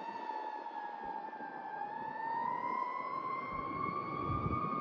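Fire truck siren wailing, its pitch climbing slowly and steadily over several seconds.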